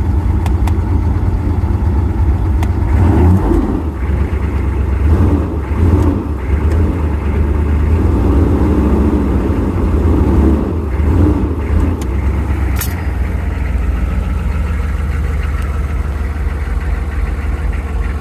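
6.5L engine running cold, with uneven swells and dips for the first several seconds before settling to a steadier idle. This is the cold state in which, by the owner's account, it gives no throttle response until it warms up.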